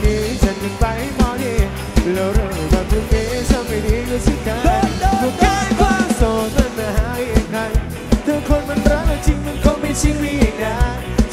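Live band music with a male lead singer singing into a microphone over a fast, steady drum beat, played loud through a stage sound system.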